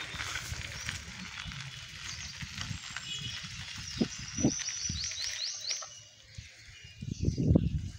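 Rural outdoor ambience of birds chirping, with a quick run of short high chirps about two-thirds of the way in. Irregular low rustles and thuds run underneath and are loudest about a second before the end.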